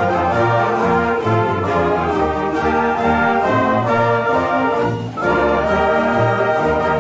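College marching band playing a brass-heavy tune over a drumline beat, with a brief drop in the sound just after five seconds in.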